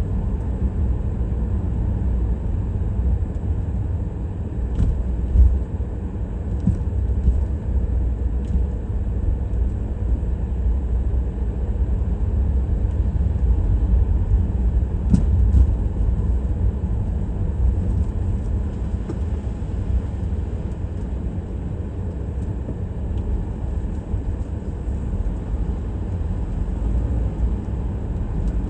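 A car driving on city streets: a steady low rumble of engine and tyres on the road, with a few faint clicks.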